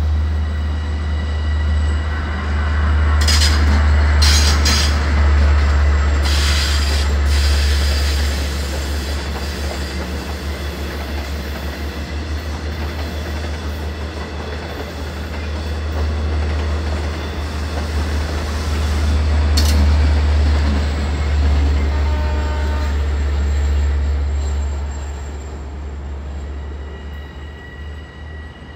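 Long Island Rail Road electric train passing close by: a steady loud rumble of wheels on rail, with sharp clacks over rail joints a few seconds in and again about two-thirds of the way through. The sound fades somewhat toward the end.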